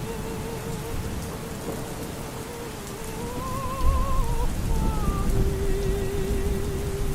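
Steady rain with thunder rumbling, the rumble growing heavier about four seconds in, under faint opera singing: a voice holding long notes with wide vibrato.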